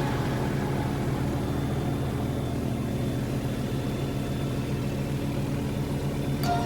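Helicopter engine and rotor running, a steady low drone with a constant hum.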